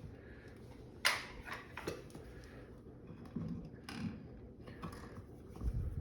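Scattered clicks and light knocks of pliers working two bare copper ground wires, twisting them together. The sharpest click comes about a second in.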